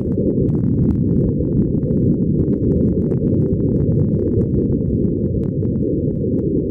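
Steady low rumbling noise, with faint scattered crackles over it.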